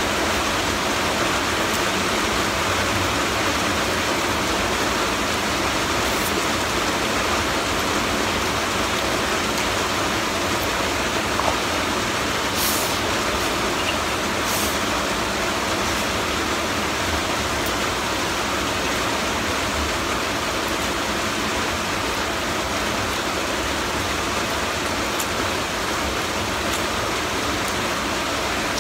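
Heavy rain falling, a steady unbroken hiss.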